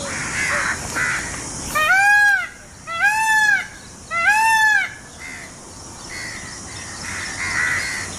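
Indian peafowl (peacock) giving three loud calls about a second apart, each rising and then falling in pitch.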